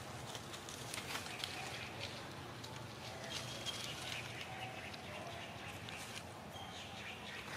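Outdoor ambience of light rustling and scattered small clicks, with a few short, faint, high-pitched chirps.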